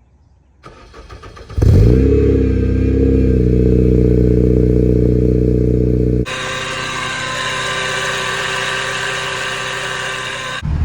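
Cold start of a Honda/Acura RSX Type-S 2.0-litre four-cylinder through a Skunk2 Alpha header and HKS Hi-Power cat-back exhaust. The starter cranks for under a second, the engine catches with a flare of revs and settles into a loud, steady fast idle. About six seconds in it cuts abruptly to a quieter, higher-pitched steady sound with a thin whine.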